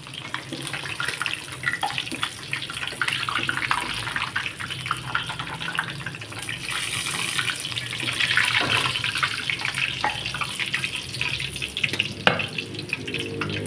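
Oil crackling and sizzling as pindang milkfish fry in a wok, a dense spitting hiss that swells briefly about eight seconds in. A single sharp knock near the end.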